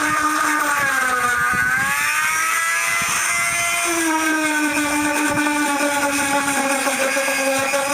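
Electric power sander running on the flesh side of a dried sheep pelt, a steady motor whine whose pitch dips and recovers about a second in and shifts again near the middle.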